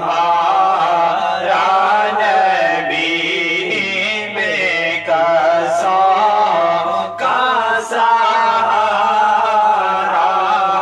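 Group of men's voices chanting a devotional Urdu naat together, in long wavering held notes over a steady low hum of voices.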